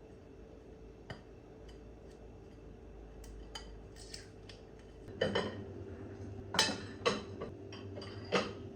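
Kitchen dishes and metal utensils clinking and clattering: a few light clicks at first, then louder, sharper clinks from about halfway through. A steady low hum comes in at the same point.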